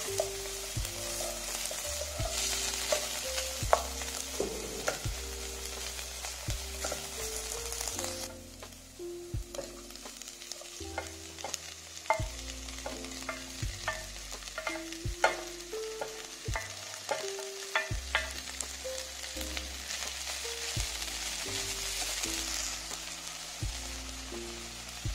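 Chopped onion frying in oil in a nonstick pot, sizzling as it is stirred with a wooden spoon. About a third of the way in the sizzle drops away and a run of sharp taps and clicks follows while spinach leaves are added and turned; the sizzle returns in the later part. Soft instrumental background music plays throughout.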